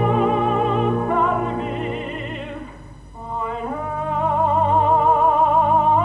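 Operatic singing with orchestral accompaniment: a sung phrase with wide vibrato, a brief quieter dip about three seconds in, then a long note held with vibrato that swells louder.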